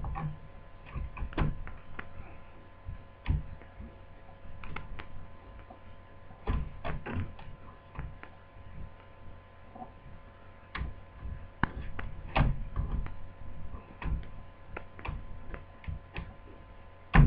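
Irregular light clicks and taps of a replacement laptop LCD panel being handled and seated into the plastic lid frame, over a steady electrical hum.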